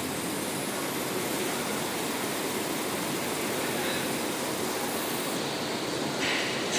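Toilet paper converting line machinery running: a steady, even mechanical noise with no clear rhythm. A louder hiss comes in near the end.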